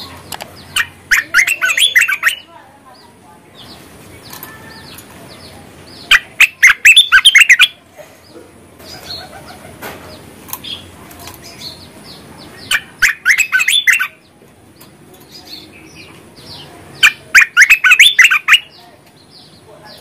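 Bulbul (merbah) singing: four loud bursts of quick, bubbly notes, each about a second or a second and a half long and several seconds apart, with softer chirps between them.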